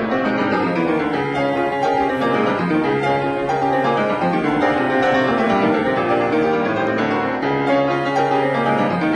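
Background classical piano music.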